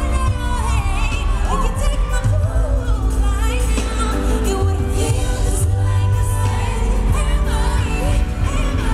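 Live pop music: a girl group singing into handheld microphones over a loud amplified backing with heavy, continuous bass.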